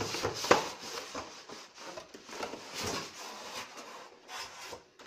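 Polystyrene foam packing insert rubbing and scraping against the cardboard TV box as it is pulled up and out, with a sharp knock about half a second in.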